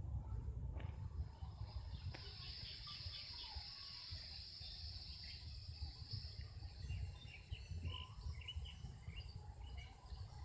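Insects trilling steadily in high, continuous tones, with scattered short bird-like chirps and a low rumble underneath.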